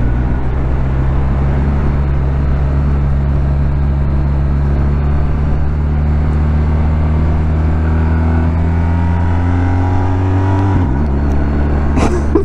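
BMW R1250R's boxer-twin engine pulling out of a roundabout, heard from inside the rider's helmet over wind noise. The engine note climbs gradually, then drops sharply about eleven seconds in at an upshift. A short rush of noise follows near the end.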